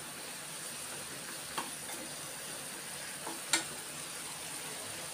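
Spice gravy with fox nuts simmering in a nonstick frying pan, a steady hiss, as a spatula stirs it; the spatula knocks sharply on the pan twice, about a second and a half and three and a half seconds in, the second knock louder.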